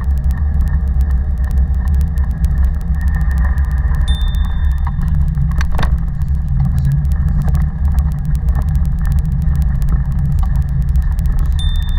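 Steady low rumble of a moving cargo bike heard from a camera mounted on its frame: wind on the microphone and the wheels rolling over the path. There is a single knock, like a bump, a little before halfway, and a brief thin high tone about a third of the way in.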